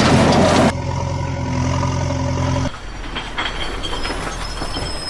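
Vehicle sound effects: a short loud hiss, then a heavy engine running steadily, changing about halfway to a rattling rumble with faint high squeals like a train.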